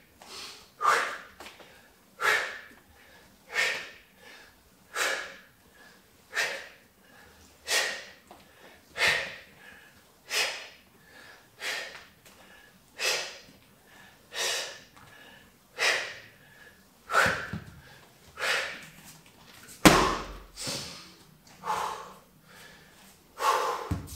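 A man breathing out sharply and hard once per repetition of a Bulgarian bag exercise, in a steady rhythm of about one breath every second and a half. Two dull thuds come near the end; the last is the sandbag being set down on the mat.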